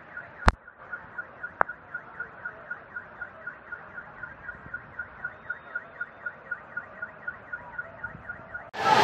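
An electronic alarm beeping rapidly, one pitch repeating about five times a second over a steady hiss, with two sharp clicks in the first two seconds. It stops abruptly near the end as loud voices cut in.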